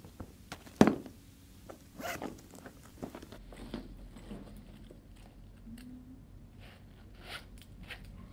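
A handbag being handled and rummaged through, with a sharp knock about a second in and rustling after. Near the end, a zip-around wallet is unzipped in a few quick strokes.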